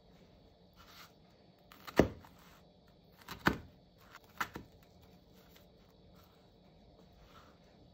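Kitchen knife cutting through an onion and knocking on a wooden cutting board: a few sharp knocks, the loudest about two seconds in, then more around three and a half and four and a half seconds.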